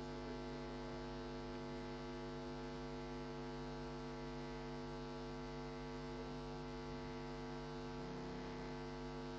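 Steady electrical mains hum: an even buzz made of many stacked tones, holding level throughout with nothing else over it.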